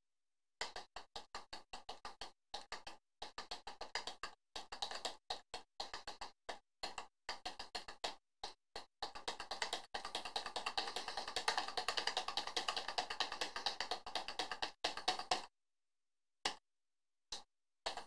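Computer keyboard keys clicking under typing fingers, a run of uneven keystrokes that turns into a fast, dense patter for several seconds, then stops with a few single presses near the end.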